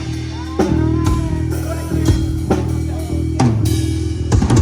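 Live rock band playing amplified through a PA during a sound check: electric guitar and bass holding low sustained notes under drum-kit hits.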